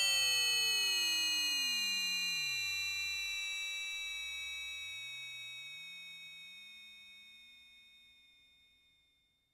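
Roland Super Jupiter analog synthesizer sound effect: a cluster of high ringing tones slowly sinking in pitch, with lower tones sweeping up and down across one another. It fades away over about nine seconds.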